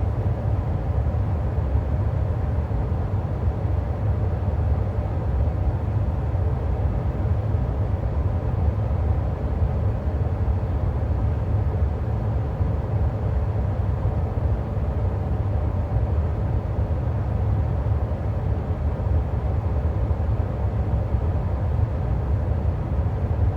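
A vehicle engine running steadily, a low rumble that holds even throughout.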